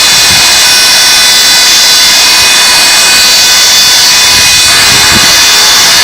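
Live harsh noise music: a loud, dense wall of hiss with several steady high tones layered through it. The texture shifts slightly about two-thirds of the way in.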